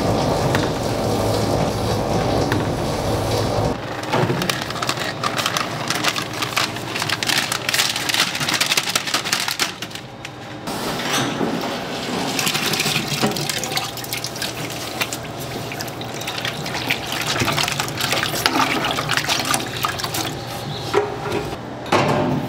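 Water running, with many small clicks throughout; a low hum stops about four seconds in.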